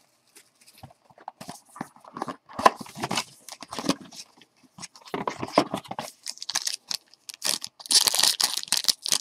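Hands handling a cardboard trading-card box, with scattered light taps and rustles as the lid comes off. Near the end comes a dense crinkling and tearing as the foil card pack is ripped open.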